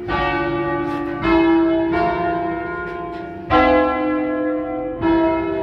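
Five-bell church ring in C, cast by the Barigozzi brothers of Milan in 1940, rung by hand with ropes and heard from inside the bell tower. About five strokes of different bells fall at uneven gaps of one to two seconds, each one ringing on and overlapping the next.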